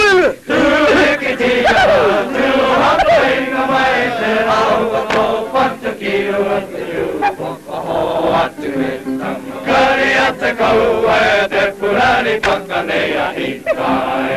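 Group of Maori performers chanting and singing together in the Maori language, with sharp rhythmic beats cutting through the voices.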